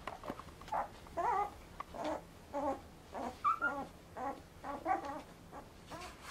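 Newborn Brittany spaniel puppies whimpering and squeaking: short, high, wavering cries, about two a second.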